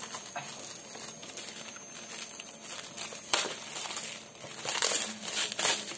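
Bubble wrap and plastic packaging rustling and crinkling as a boxed camera lens is unwrapped by hand, with one sharp click about three seconds in and louder crinkling near the end.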